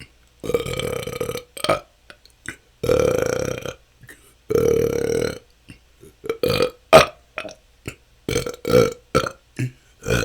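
A person burping naturally, without forcing it. Three long, drawn-out belches of about a second each at a steady pitch come first, then a quick run of short burps in the second half.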